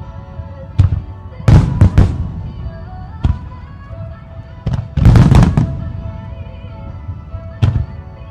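Aerial fireworks shells bursting in a series of loud booms, some single and some in quick clusters, the biggest clusters about one and a half and five seconds in. Music plays underneath for the synchronised show.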